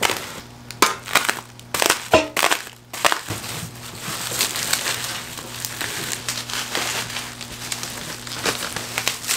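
Bubble wrap crinkling and crackling as it is pulled and worked off exhaust headers. Sharp separate crackles in the first few seconds, then a continuous dense crinkling.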